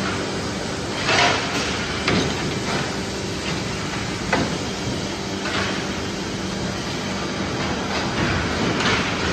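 Plastic thermoforming machine running on a blister-tray production line: a steady mechanical hum with a few short, sharp noises about one, two, four and a half, five and a half and nine seconds in.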